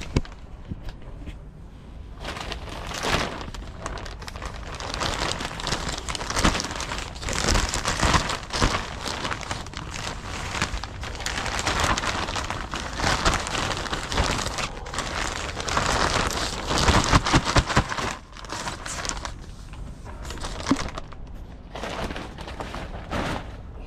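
Irregular rustling and crackling of leafy chilli and tomato plants being pushed through and picked, coming in bouts with short pauses.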